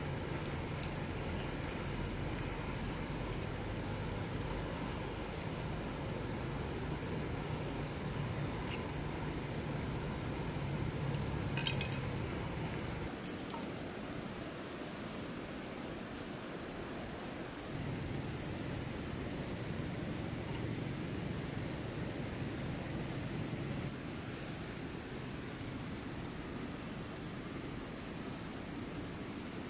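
Steady high-pitched insect drone over a low wash of flowing river water, with one sharp click about twelve seconds in.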